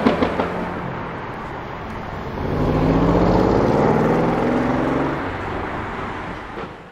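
Tuned Mercedes CLS63 AMG twin-turbo V8 with a pops-and-crackles remap: a few sharp exhaust crackles at the start, then the engine pulls hard under acceleration, its pitch rising, before it fades away near the end.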